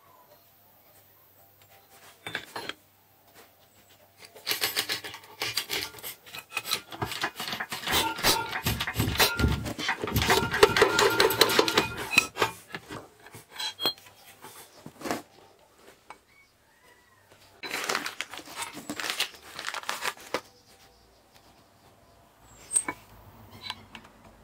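Hydraulic bottle-jack press pushing a rubber bushing through the eye of an aluminium Audi A8 upper control arm: a dense run of clicks and creaks from about five seconds in to about twelve seconds, another shorter run near the end, and a few single knocks of metal parts being handled.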